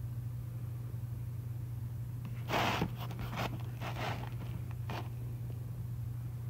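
Cardboard pizza box rustling and scraping as a slice of pizza is pulled free and lifted: four short scrapes starting about halfway through, the first the loudest. A steady low hum sits underneath.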